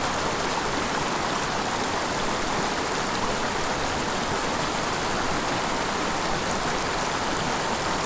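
Small mountain creek running steadily: an even, constant rush of flowing water.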